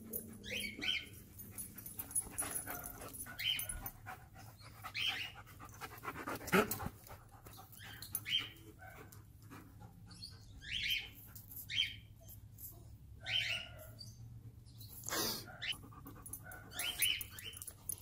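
Dogs whining and yelping in short high calls every second or two, the loudest about six and a half seconds in.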